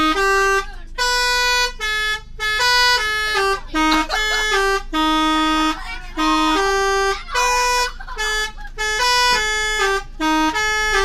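Bus 'telolet' horn, a set of musical air horns, sounding a tune: short held notes that step up and down in pitch one after another with brief gaps between them.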